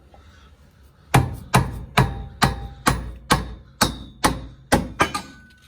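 Rubber mallet striking a steel BBK frame connector about ten times in a steady rhythm, a little over two blows a second, starting about a second in, knocking the connector up into position under the car's floor. Each blow is a sharp knock with a short metallic ring.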